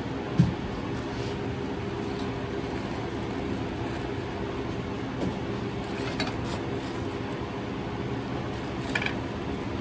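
Steady mechanical hum of kitchen equipment with several fixed low tones. A short thump comes about half a second in, and a few faint clicks follow later as a knife cuts and cores green bell peppers.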